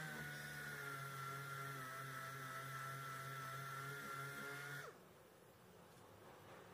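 Random orbital sander running steadily with a high whine and a low hum as it sands body filler on a car fender, then switched off about five seconds in, its pitch dropping briefly as it spins down.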